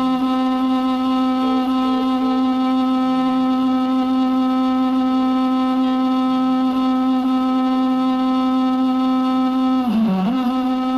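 A synthetic voice holding one long, steady hum at a single pitch in imitation of a running microwave; near the end the pitch dips briefly and then comes back.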